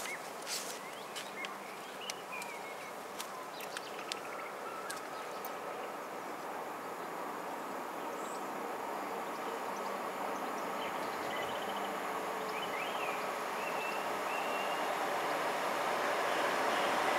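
Test train 950001, a diesel track-recording unit, approaching along the line: a steady rumble that grows gradually louder. Birds chirp over it in the first half.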